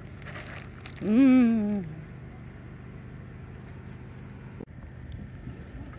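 A woman's short, wavering 'ooh'-like vocal sound about a second in, over a faint steady hiss and low hum.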